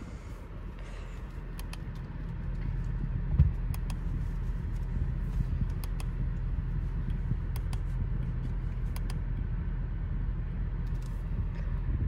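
A 2018 Audi S5's turbocharged 3.0-litre V6 idling steadily, heard from inside the cabin. Scattered light clicks run over it, with a single thump about three and a half seconds in.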